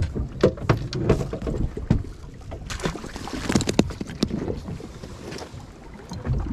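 Irregular knocks and clicks of fishing rods and line being handled in a small boat, over a constant low rumble of wind and water.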